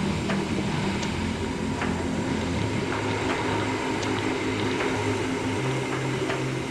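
Background music with a bass line stepping between held notes and a light, regular beat, over a steady hiss.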